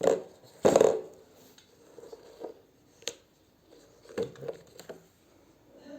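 A spoon clinking and knocking against kitchen dishes in a handful of separate knocks, the loudest about a second in, as a spoonful of powdered medicine is taken and honey is added.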